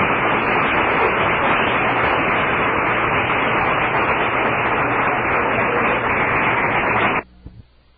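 Audience applauding steadily after a lecture, then cut off suddenly about seven seconds in, with a faint knock just after.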